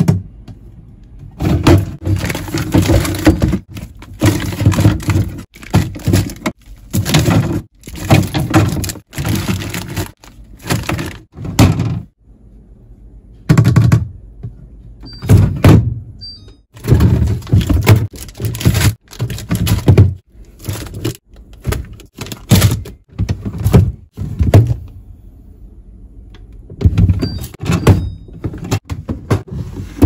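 Plastic refrigerator drawers and food items being handled: repeated thunks and knocks in quick clusters, with short lulls about twelve seconds in and again near the end.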